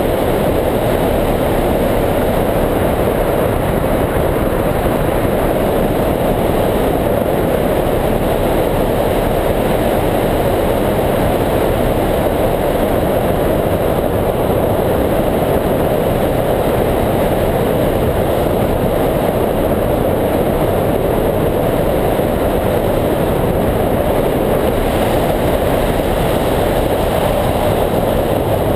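Steady, loud rush of wind over the microphone of a camera mounted on a hang glider's wing in flight.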